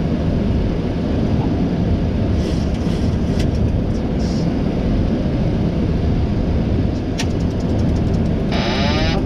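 Steady rushing noise on the flight deck of a Boeing 737 MAX on approach: airflow and engine noise, heaviest in the low end. Near the end a thinner, higher sound with wavering tones comes in over it.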